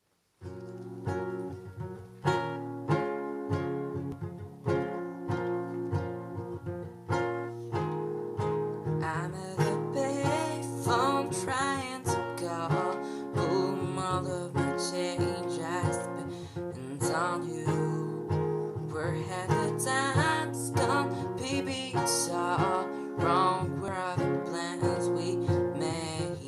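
Acoustic guitar playing a song intro with strummed and picked chords, starting about half a second in and growing busier about nine seconds in.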